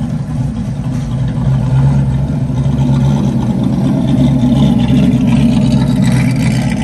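Car engine running steadily, getting a little louder about a second and a half in, with a hiss higher up growing toward the end.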